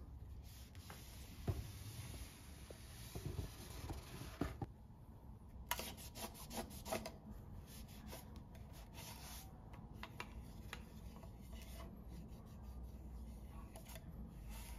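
Wet wipe rubbing over a painted wall surface: faint, irregular rubbing strokes with a few sharp little clicks and taps in between.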